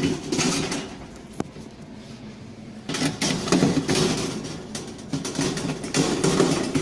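Hands working inside a refrigerated counter to free the temperature controller's sensor: irregular rattling and scraping, with a single sharp click about one and a half seconds in.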